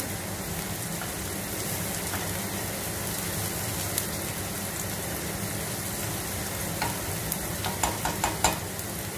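Diced red onion and minced garlic sizzling steadily in hot oil in a nonstick frying pan as they are stirred with a silicone spatula. A few sharp clicks of the spatula against the pan come near the end, over a steady low hum.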